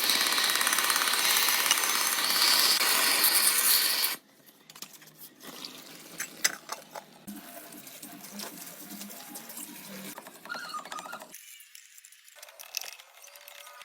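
A loud, steady hiss, like a jet of spray or air, cuts off abruptly about four seconds in. Light scattered clicks and clinks of small metal handling follow.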